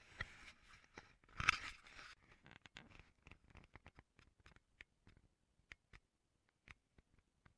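Handling noise from the camera itself: fingers rubbing and scraping on its body, loudest about a second and a half in, followed by scattered faint clicks that thin out.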